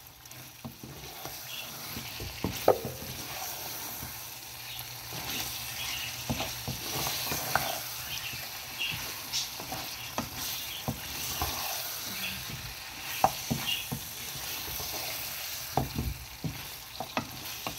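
Beef pieces sizzling steadily in a stone-coated frying pan, the gravy cooked down almost dry so the meat fries in its own oil. A wooden spatula stirs and scrapes through it, with irregular knocks against the pan; two louder knocks come a few seconds in and about two-thirds of the way through.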